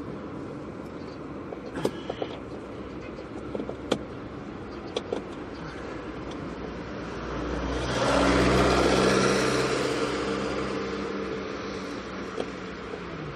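A few small clicks and knocks, then a motor vehicle passing by: its engine and tyre noise swells for a few seconds, is loudest about eight to ten seconds in, and fades away.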